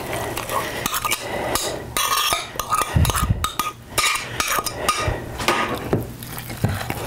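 A utensil scraping and clinking against a ceramic plate as chopped spinach is scraped off it into a mixing bowl: irregular scrapes and clicks, with a dull knock about three seconds in.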